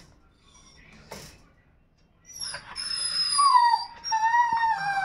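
A dog shut in a wire crate whining: a long, high whine starting about two seconds in that slides slowly down in pitch. The whining is a protest at being kept in the crate.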